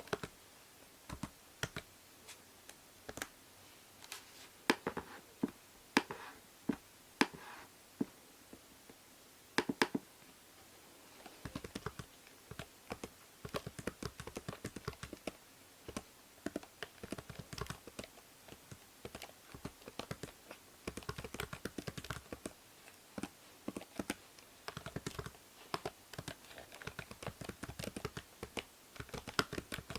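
Typing on a computer keyboard: scattered single keystrokes at first, a short pause about ten seconds in, then fast continuous typing. A steady hiss from the binaural microphone lies under the keys.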